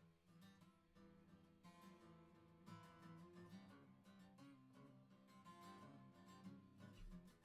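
Acoustic guitar played faintly, with strummed chords and ringing notes.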